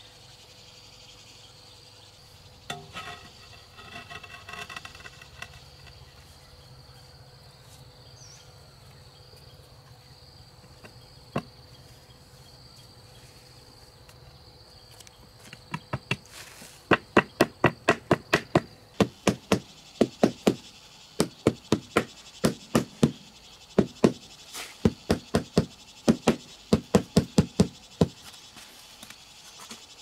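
Runs of sharp knocks, about three to four a second, starting about halfway through and going on for some twelve seconds with short pauses, as floor tiles are tapped down into mortar. Under it, insects drone steadily at a high pitch.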